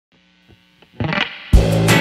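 Intro music that starts faint and sparse, swells about a second in, and comes in loud with a beat about a second and a half in.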